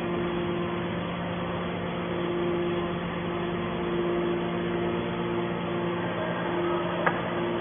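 Hydraulic steel scrap baler running with a steady mechanical hum, a higher tone in it fading in and out, and one sharp click about seven seconds in.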